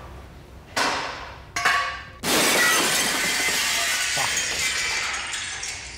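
Glass breaking: two sharp clinking impacts about a second and a second and a half in, then a loud shattering crash that rings and tinkles on for about three seconds before fading near the end.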